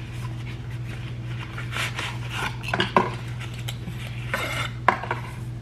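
Skincare product bottles and their packaging being handled: a few sharp clinks and knocks, with short rustles between them, over a steady low hum.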